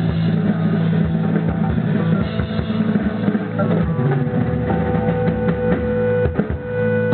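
Live rock band playing loud: a drum kit with kick drum hits and fills under electric guitar and bass, with a long held note through the second half. The guitar is a Gibson Historic '57 and the bass a Music Man StingRay.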